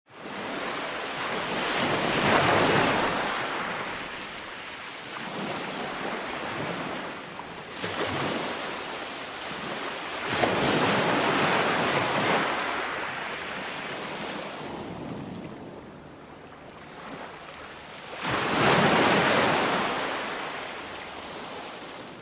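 Ocean waves breaking on a shore: a steady wash of surf that swells into three loud crashes, about eight seconds apart, each ebbing away before the next.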